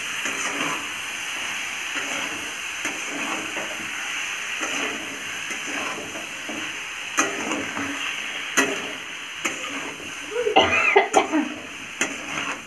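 Potatoes, bean seeds, tomatoes and ground masala sizzling in an aluminium kadhai while a spatula stirs them, with a steady frying hiss and now and then a sharp click of the spatula against the pan.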